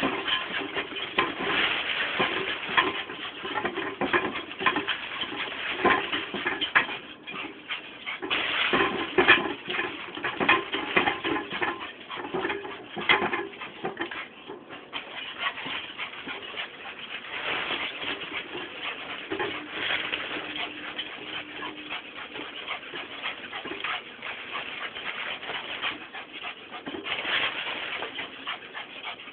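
A dog whimpering and whining while spinning fast in circles, over a dense, rapid scuffling of its paws. A longer held whine comes about twenty seconds in.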